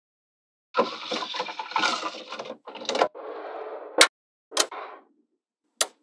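Small magnetic balls rattling and clattering against one another for about two seconds, then a softer rustle, and sharp clicks as magnet pieces snap together: two about half a second apart, and one more near the end.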